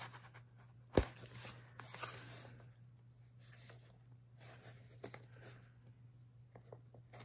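A small cardboard box sealed with packing tape being prised open with a pen: a sharp click about a second in, then soft scratching and tearing of tape and cardboard with a few small clicks.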